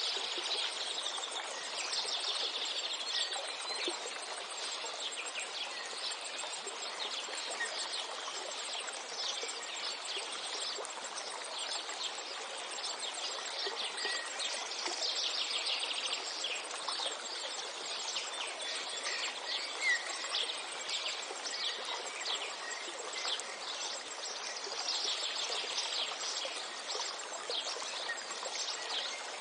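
Songbirds chirping in quick bursts over a steady rushing hiss like flowing water, with a short louder whistle about two-thirds of the way through.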